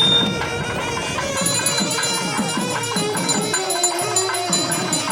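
Traditional Indian music: a reedy wind instrument plays a melody over quick, steady drumming.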